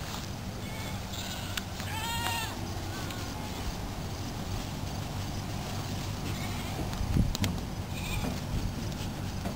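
A goat bleats once, a high call about two seconds in, with fainter short calls later. A short low thump near seven seconds is the loudest sound.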